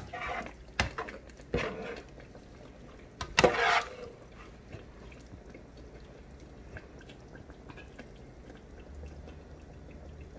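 A metal spider strainer knocking and scraping against a frying pan a few times while potatoes are scooped out, the loudest a short clatter about three and a half seconds in. After that, a faint steady sizzle and crackle of potatoes frying in oil.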